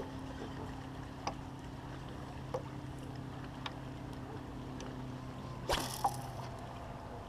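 Spinning rod and reel worked from a fishing boat: a steady low hum with light knocks every second or so, then a short swish about six seconds in as the rod is swept up high.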